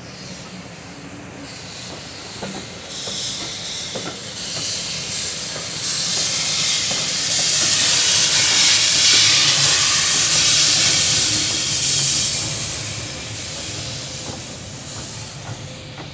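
Steam hissing from the unrebuilt Bulleid Battle of Britain class locomotive 34072 '257 Squadron' as it passes, banking at the rear of the train. The hiss swells to its loudest in the middle and then fades, with a few faint knocks in the first few seconds.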